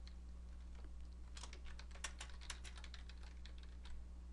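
Faint typing on a computer keyboard: a quick run of keystrokes from about a second in to past the three-second mark, over a steady low hum.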